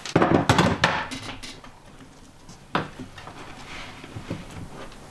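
Tools and fittings clattering and knocking against a plywood workbench as they are picked up and moved: a quick run of clinks and knocks at first, then one sharp knock a little under three seconds in, then a few light ticks.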